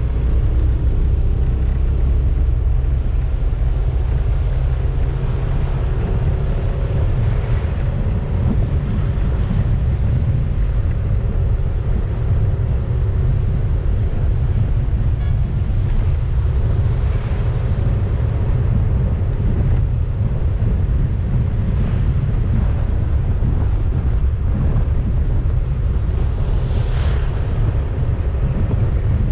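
Wind buffeting the camera microphone on a moving motorcycle: a steady heavy rumble, with the motorcycle's engine droning faintly underneath.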